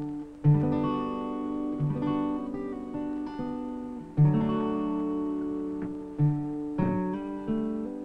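Acoustic guitar music: plucked chords with a low bass note struck every second or two.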